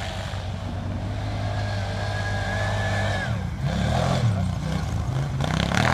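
Arctic Cat four-wheel-drive engine running steadily, then from about halfway through revving up and down in pitch as it is driven and drifted through snow.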